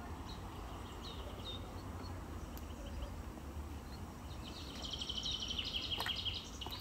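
Songbirds outdoors: a few short high chirps about a second in, then a rapid trill of quickly repeated high notes lasting about two seconds near the end, over a steady low rumble.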